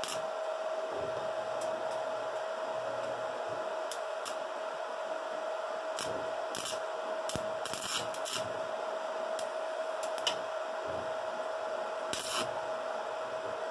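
Stick-welding arc crackling in short bursts as an electrode tacks thin perforated sheet metal at lowered amperage, over a steady machine whine. The crackles come several times, the longest sizzles around the middle and near the end.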